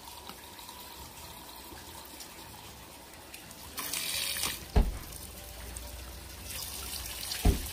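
A thin stream of cold spring water from a spout runs steadily onto wet stone. About four seconds in it splashes loudly on a plastic bottle held in the stream, and a thump follows. Near the end a second plastic bottle fills under the stream, with another thump.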